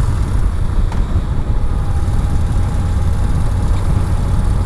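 Steady wind rush on the microphone over the low running drone of a Yamaha Bolt XV950R's V-twin engine while riding.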